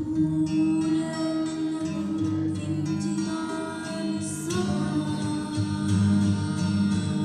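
Acoustic guitar playing with a girl's singing voice over it, a long note held steady for the first few seconds.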